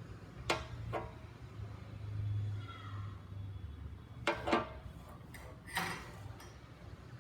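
A few sharp clicks and taps of small tools and wire being handled on a workbench during a cable soldering repair: two near the start, a pair about four seconds in and another near six seconds, over a low steady hum.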